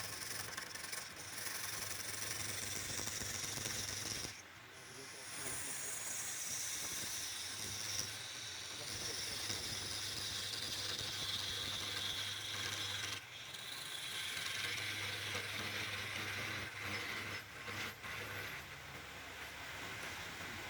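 Wood lathe running with a steady hum while a turning tool scrapes the spinning wood, a continuous hissing scrape that lets up briefly twice.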